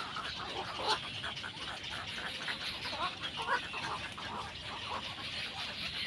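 Egret chicks in the nest giving short begging calls as the adult bends down to feed them, with a few louder calls near 1 s and again around 3 s, over a steady high hiss.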